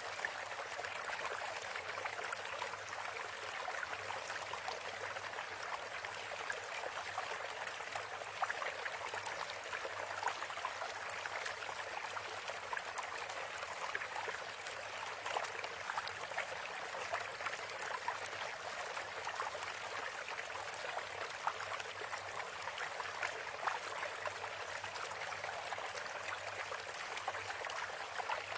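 Steady rushing, water-like noise, like a flowing stream, with a fine crackle throughout.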